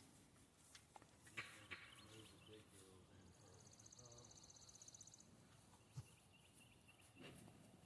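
Near silence: faint outdoor ambience with a few soft knocks and a brief high, rapidly pulsing trill lasting about two seconds, starting about three seconds in.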